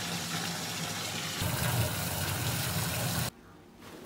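Water gushing steadily from a waterfall-style bathtub spout into a filling tub. It cuts off suddenly about three seconds in, leaving a quieter stretch that ends in a short knock.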